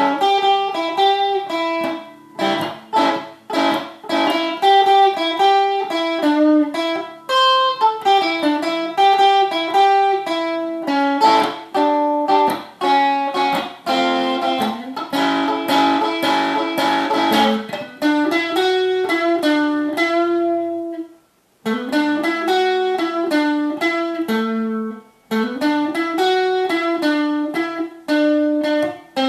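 Cedar-bodied Tonante electric guitar with Wilkinson pickups playing a blues instrumental passage of single-note melodic lines, with a brief pause about two-thirds of the way through.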